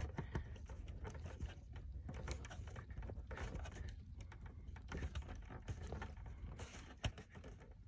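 Faint, irregular small clicks and rustles of hands screwing a small plastic tap connector onto a wire, tightening it so its inner blade cuts into the wire's insulation; one sharper tap near the end.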